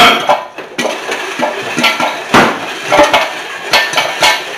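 Popcorn kernels popping in a covered stainless steel pot, sharp irregular pops about two a second, with metallic clinks of the pot and lid.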